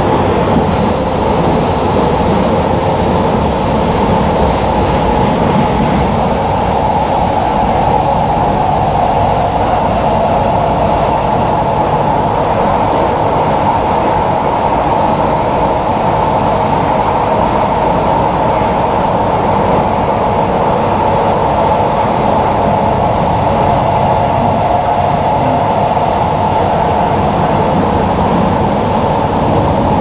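Kyoto Municipal Subway Tozai Line train running between stations in its tunnel, heard from inside the car: a steady rumble and rush of wheels on rail with a thin high tone held throughout.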